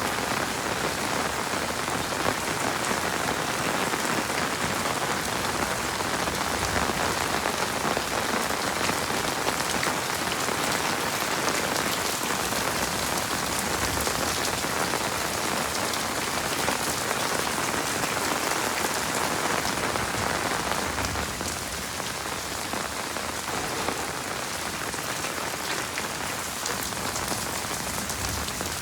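Heavy rain falling steadily in a dense, even hiss of drops. It eases slightly about two-thirds of the way through.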